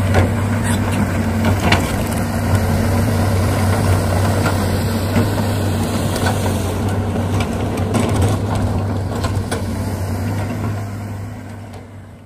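Steady engine-like drone at idle, as from a working excavator, with scattered light clicks and knocks; it fades out near the end.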